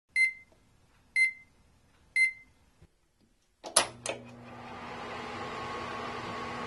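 Microwave oven sound effect: three short beeps a second apart, two sharp clunks about four seconds in, then a steady hum that builds up and holds as the oven runs.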